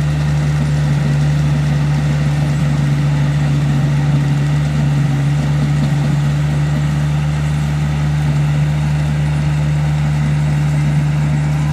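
Kubota crawler combine harvester running steadily while it cuts and threshes rice: an even engine drone with a strong low tone and a haze of machinery noise above it.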